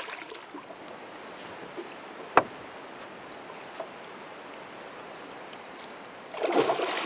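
A hooked giant snakehead thrashing and splashing at the surface beside a small boat, a short splash near the end. A single sharp knock about two and a half seconds in is the loudest moment.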